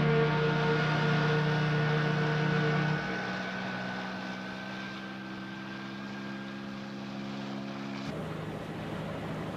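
Aircraft engines running steadily: a low pitched hum with a thin high whine that rises slowly, over a rushing noise. About eight seconds in the hum cuts off and only an even rushing noise remains.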